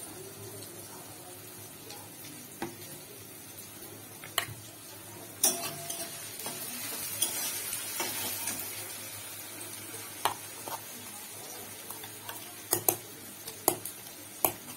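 Food sizzling steadily in hot oil in a pan, the hiss swelling a little midway, with scattered sharp metal clinks. Near the end a spoon is scraping and clinking in a steel mixer-grinder jar as spice paste is stirred.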